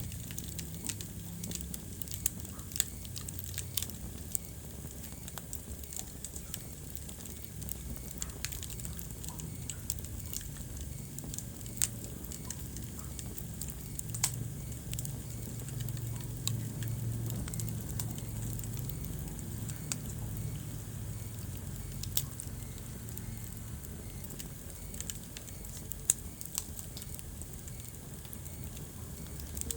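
Wood fire burning in a fireplace, crackling steadily over a low rumble of the flames, with a handful of sharper, louder pops scattered through.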